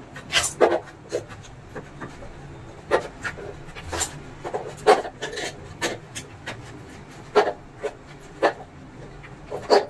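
Flat-bladed screwdriver scraping along the inside edge of an induction cooker's plastic top frame, in a dozen or so short, irregular strokes.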